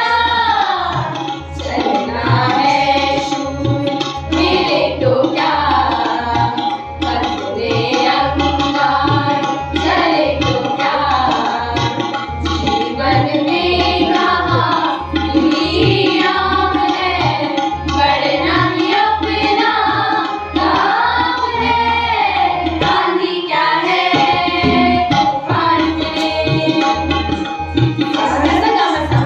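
A group of school students singing a song together, accompanied by harmonium and tabla keeping a steady beat of low drum strokes.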